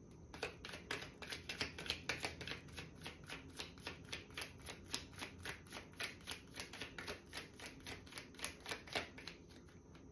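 A deck of reading cards being shuffled by hand: a steady run of soft card clicks, about four a second.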